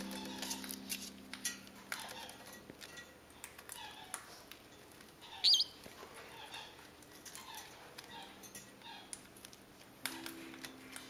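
Meyer's parrots nibbling at chard leaves and flowers, their beaks making soft, irregular clicks, with one short, high squeak from a parrot about five and a half seconds in.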